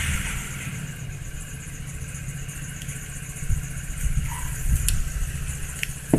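A steady low rumble, like an engine running nearby, under a few small clicks of the KastKing Sharky III spinning reel's bail assembly being fitted by hand. The sharpest click comes at the very end.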